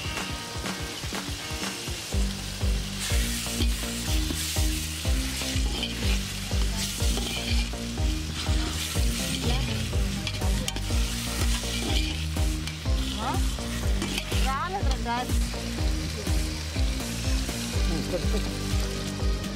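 Onion-and-tomato masala sizzling in a metal pot while a metal skimmer spoon stirs it. About two seconds in, background music with a steady beat and bass line comes in over it.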